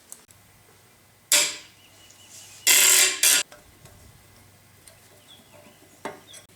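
Hand disassembly of metal planer parts: a sharp knock about a second in, a louder burst of noise lasting under a second around three seconds in, and a click near the end, over a low steady hum.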